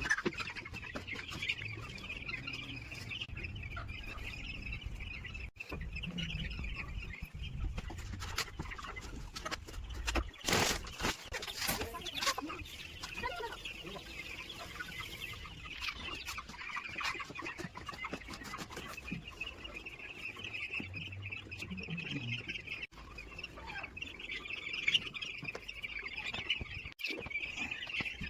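A flock of nine-day-old broiler chicks peeping continuously, many high chirps overlapping into a steady chorus. A few sharp knocks sound about a third of the way through.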